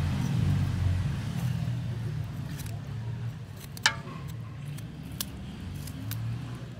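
Small kitchen knife cutting through an orange bell pepper held in the hand, giving a few sharp crisp snaps and clicks, the loudest just under four seconds in. A steady low rumble runs underneath.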